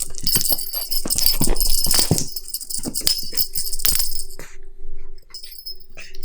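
Cat wand toy attachments being handled, their small bells jingling and rattling with light clicks. The jingling is busiest in the first four seconds and thins out after that.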